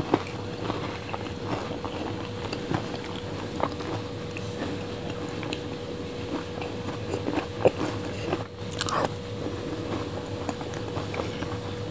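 Close-miked mouth sounds of eating a soft, creamy dessert from a metal spoon: many small wet clicks and smacks, with a few sharper clicks near the end. A faint steady hum runs underneath.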